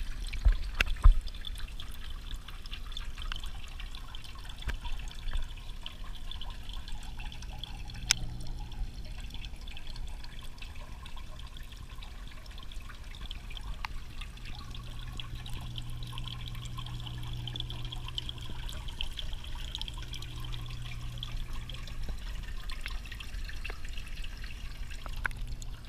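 Water trickling and moving in a turtle tub, heard through a camera held underwater, with a low steady hum. A few sharp knocks in the first second or so and a single click about eight seconds in.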